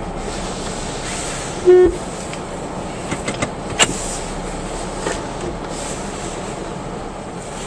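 Steady blowing of the car's heater over an idling engine, heard inside the cabin. About two seconds in there is one short, loud beep, and just before four seconds a sharp click.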